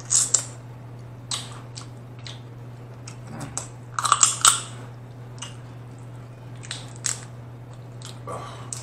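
Biting and chewing snow crab leg meat, with sharp crunching clicks of crab shell scattered throughout and the loudest cluster about four seconds in.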